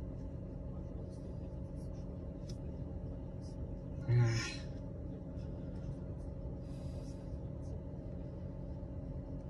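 Steady low hum inside a stopped car, with faint light ticks and one short breathy vocal sound about four seconds in.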